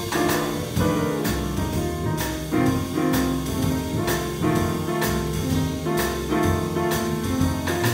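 Small jazz combo playing a blues: a Roland RD-700 stage keyboard in front over plucked upright bass and a drum kit with steady cymbal strokes.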